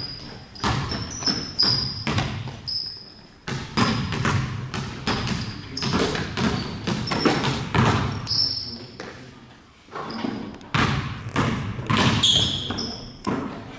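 Several basketballs bouncing on a hardwood gym floor, a steady run of irregular thuds ringing in a large, echoing gym, with short high squeaks now and then.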